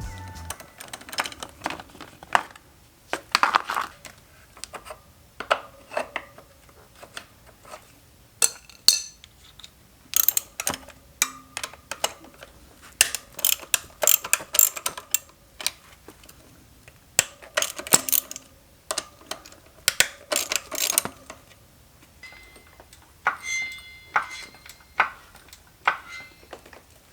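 Irregular metallic clinks and clanks of tools and small metal parts being handled and set down, some ringing briefly.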